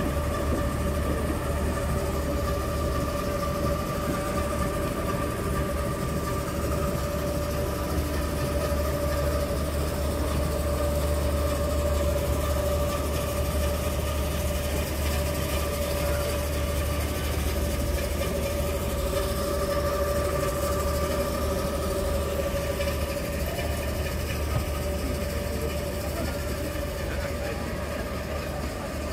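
Steady machine hum: a low drone under a held, mid-pitched whine, even and unbroken throughout.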